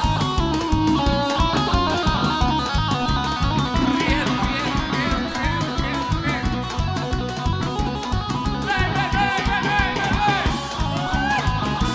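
Live axé band playing an instrumental break: a lead guitar line of quick notes and string bends over a steady drum and bass beat.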